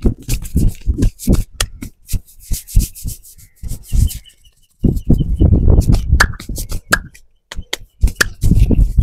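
Hand head massage: fingers rubbing and scrubbing through a man's hair and hands slapping and tapping his scalp in a fast run of sharp taps, with a short lull about halfway through.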